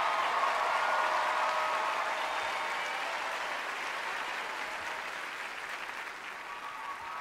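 Studio audience applauding, the clapping slowly dying away.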